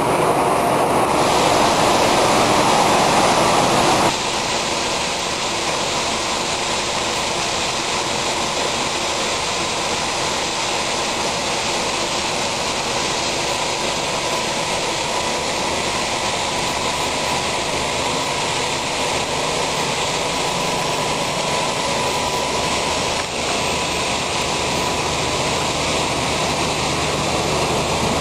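Heavy farm machinery running steadily, a dense even machine noise with a faint steady whine. About four seconds in the sound changes abruptly and gets a little quieter.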